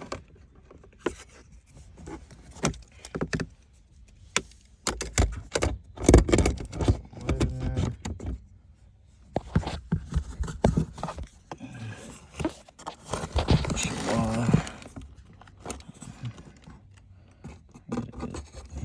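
Repeated clicks, knocks and scraping of the shifter linkage's metal and plastic parts and clips being handled and worked loose, with busier clattering stretches about a third of the way in and again past the middle.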